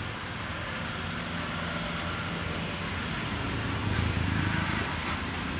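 A motor vehicle's engine running steadily with a low hum, swelling louder for about a second around four seconds in.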